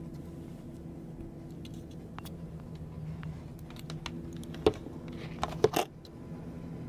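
Scattered light clicks and taps of someone working at a laptop, with a few louder knocks about two thirds of the way in, over a steady low hum in the room.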